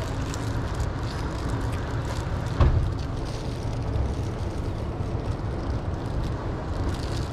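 Steady low rumbling outdoor noise, with one short thump a little over two and a half seconds in.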